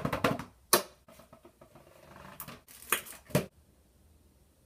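A box of chocolates being opened and handled: crinkling and rustling of the cardboard lid and plastic tray, with a few sharp crackles, the loudest about three seconds in.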